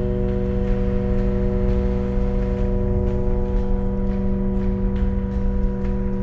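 Thread factory machinery running: a steady mechanical hum of several held tones over a low rumble, with faint irregular ticking.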